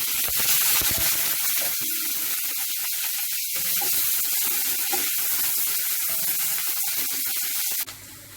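Onions frying in hot oil in a kadai with dried red chillies and panch phoron: a steady sizzling hiss that cuts off suddenly near the end.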